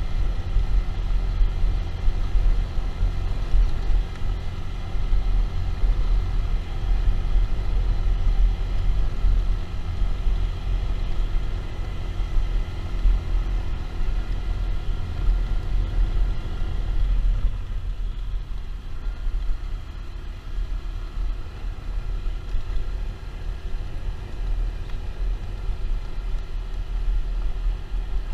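Motorcycle ride: the engine running steadily under heavy wind rumble on the microphone. About seventeen seconds in, the engine's steady tones fade, leaving mostly the wind rumble.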